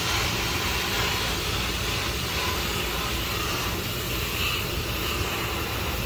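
Garden hose spray nozzle spraying water onto an air-conditioner condenser coil, a steady hiss of spray and splashing water as the coil cleaner is rinsed off.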